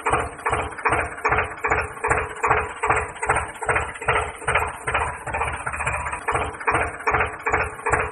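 Tractor engine sound effect chugging in an even rhythm of about three beats a second, with a steady hum under it.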